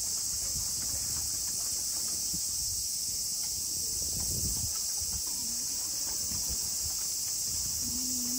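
Dense chorus of summer cicadas buzzing steadily at a high pitch.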